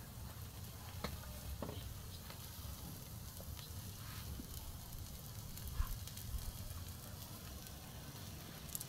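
Beef sizzling over a charcoal grill: a steady hiss with a few faint clicks.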